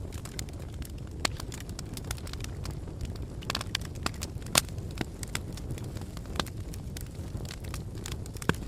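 Wood fire burning, with a steady low rumble and irregular sharp crackles and pops.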